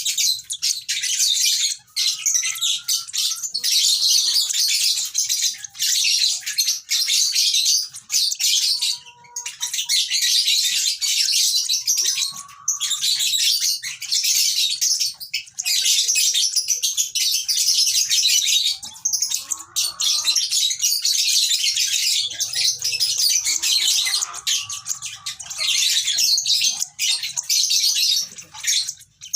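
Lovebirds chirping in a dense, rapid, high-pitched chatter that runs on with only brief pauses.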